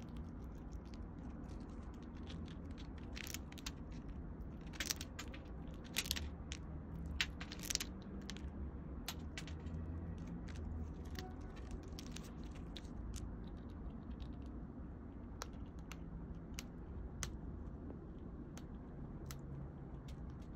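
Eurasian red squirrel cracking and chewing seeds from a pine cone: sharp little crunches and clicks, thickest in the first half, over a steady low hum.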